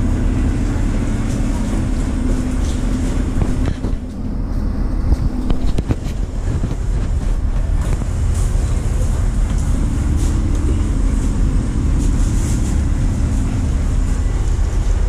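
Steady low rumble and hum of the cargo ship's engines running underway, heard from the wheelhouse. A few knocks come about four to six seconds in.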